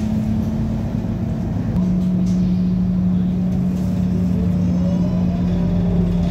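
Bus engine and gearbox running under way, heard from inside the passenger saloon: a loud steady low drone that drops a step in pitch about two seconds in, with fainter tones rising in pitch after it. The sound is taken by the uploader as not right, a suspected engine or gearbox problem.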